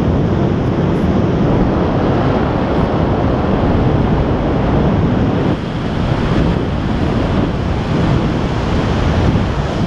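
Airflow buffeting the microphone of a camera carried on a tandem paraglider in flight. It is a steady, loud wind rush that dips briefly a little over halfway through.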